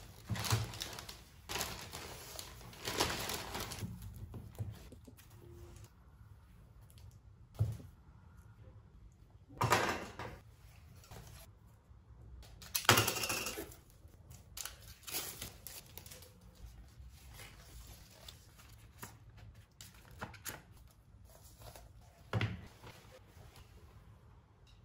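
Rustling of a plastic shopping bag and product packaging in irregular bursts as items are taken out and handled, with a few soft knocks.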